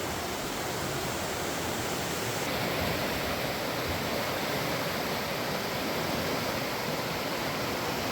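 Steady rush of water from a large spring boiling up from under a cliff and flowing away as a river.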